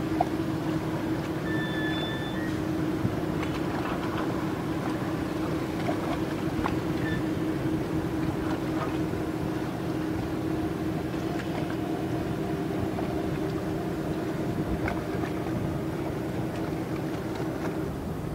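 Motorboat engine running with a steady drone, over a hiss of rushing water.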